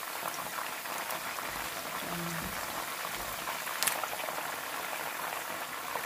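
Whole quails deep-frying in hot oil in a pan: a steady sizzle of bubbling oil, with a single sharp click about four seconds in.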